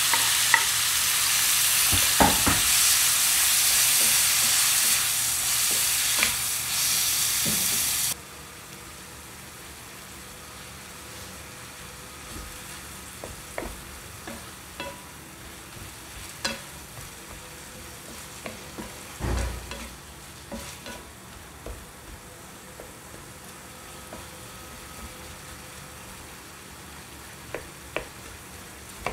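Chopped onion and diced tomato sizzling loudly in hot oil in a frying pan as they are stirred with a wooden spatula. About eight seconds in the sizzle cuts off suddenly. What remains is quieter stirring, with scattered taps and scrapes of the spatula on the pan and a single low thump a little past the middle.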